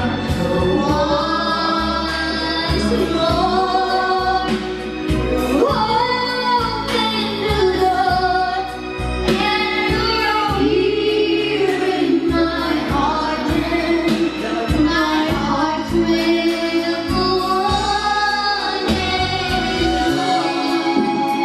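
A young girl singing a song into a handheld microphone, with instrumental accompaniment underneath.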